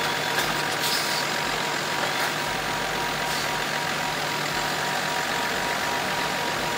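Heavy truck's diesel engine running steadily at low speed as the tractor unit tows a low-loader trailer around a tight corner, under a steady hiss with a faint thin high tone throughout.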